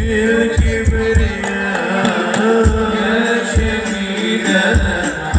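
Live sholawat hadroh music played loud through a PA: deep drum strikes in a quick, uneven rhythm under held tones and a wavering melodic line, a mostly instrumental passage between sung verses.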